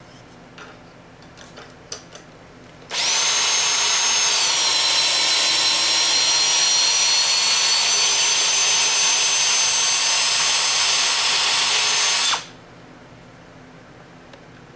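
A cordless drill runs steadily for about nine seconds, starting about three seconds in and stopping near twelve seconds, with a high motor whine. Its pitch dips about a second after starting and then holds steady.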